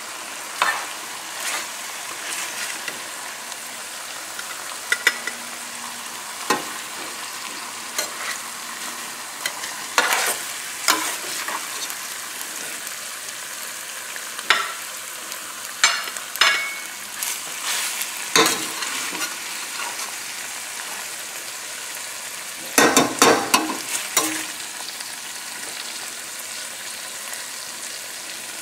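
Chicken thighs and sautéed vegetables sizzling steadily in a frying pan over the flame. Short knocks and scrapes of utensils against the pan and plate come every few seconds, with a quick run of them near the end.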